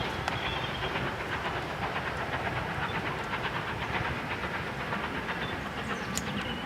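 Wagons of a steam-hauled goods train rolling past on the rails: a steady rumble with many small clicks and rattles, and some steam hiss.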